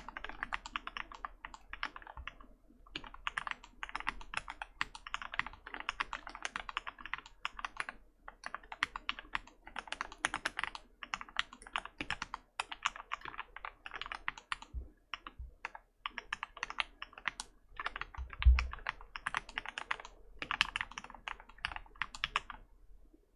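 Typing on a mechanical keyboard with Turquoise Tealios linear switches lubed with Krytox 205g0: fast runs of keystrokes broken by short pauses. A single dull low thump comes about three-quarters of the way through, and the typing stops just before the end.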